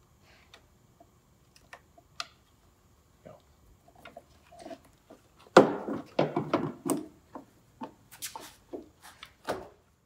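Clicks, knocks and clatter of a Porsche 911's front turn-signal housing and amber lens being handled and pushed into the fender's signal light recess, with a burst of louder knocks about halfway through.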